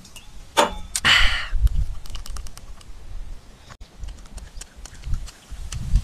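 A person crunching and chewing hard candy: a couple of short bursts near the start, then a run of small crisp crackles.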